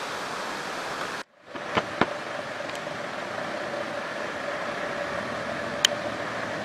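Steady rushing outdoor noise with a faint, even engine hum, broken by a short silent gap about a second in and a few sharp clicks.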